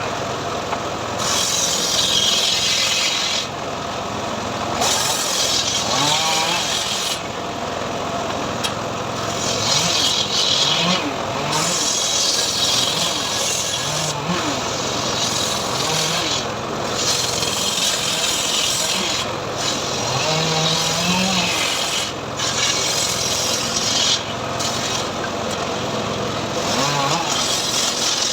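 Teak log being ripped into boards with a hand-pulled srekel ripping saw, the blade rasping through the wood in long, even strokes about every two seconds.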